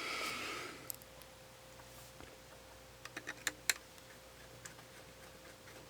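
A few small, sharp clicks and taps of hand tools against the parts of a camera body being reassembled, the densest cluster about three seconds in, over a faint steady hum.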